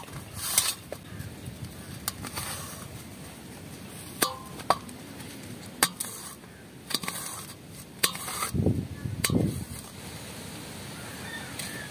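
Knife slicing raw jackfruit on a steel plate: the blade ticks sharply against the metal at irregular intervals, about ten times. Two low thumps of handling come about nine seconds in.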